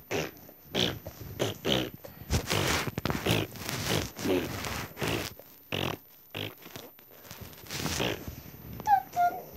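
A child making loud, breathy non-word noises with the mouth and nose in short bursts, with two brief squeaky high notes near the end.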